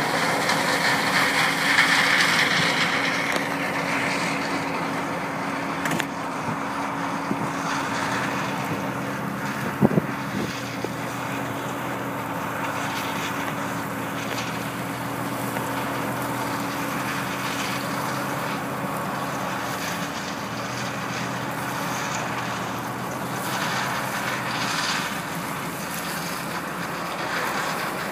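John Deere combine harvesting corn: its engine and threshing machinery running with a steady drone, a little louder for the first few seconds. One brief knock about ten seconds in.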